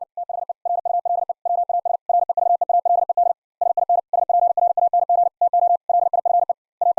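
High-speed (QRQ) Morse code sent as a CW audio sidetone: a single steady mid-pitched tone keyed rapidly on and off in quick dits and dahs, grouped with short gaps between characters and words. It gets louder about two seconds in.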